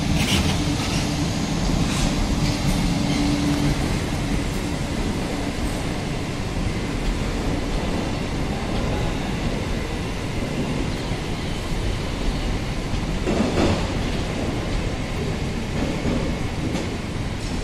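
Passenger train coaches rolling past at speed, a steady rumble of wheels on rail with a low hum over the first few seconds and a few sharp clacks, the loudest about 13 seconds in.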